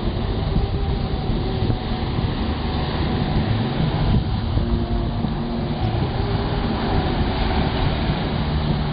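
Wind rumbling on the microphone over the wash of surf breaking on a sandy beach, a steady, loud, low noise that barely changes.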